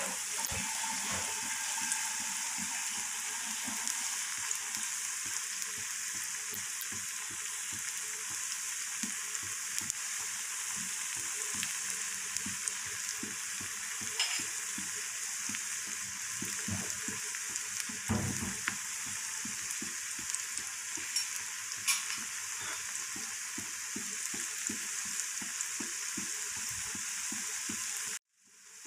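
Battered cauliflower pakoras deep-frying in hot oil in a karahi: a steady sizzle with many small crackles and pops. The sound cuts out for a moment near the end.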